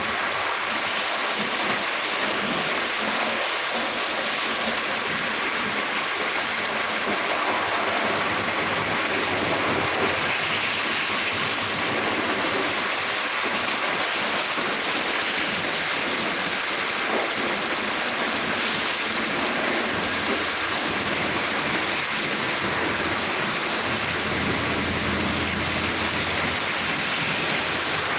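Steady rushing hiss of car wash equipment running in the hall, with a low hum joining in for a few seconds near the end.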